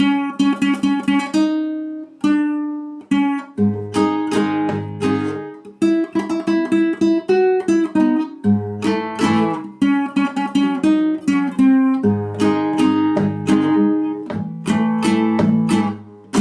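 Solo acoustic guitar playing a plucked melody over bass notes, in phrases with brief pauses between them.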